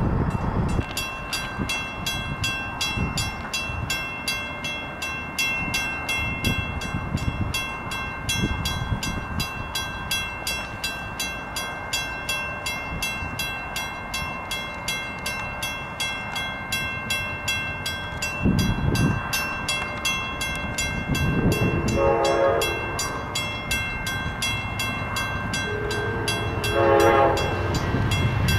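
A grade-crossing warning bell rings steadily with a fast, even beat as an Amtrak diesel locomotive approaches, its engine rumble growing from about two-thirds of the way in. The locomotive's air horn sounds two blasts near the end, the second longer and running on.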